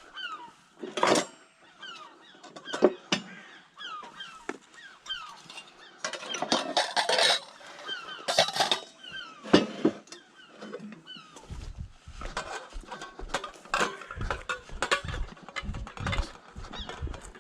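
Knocks and clatter of scrap metal being handled and stacked, over a run of short, repeated falling honks from birds, which fade out about two-thirds of the way in.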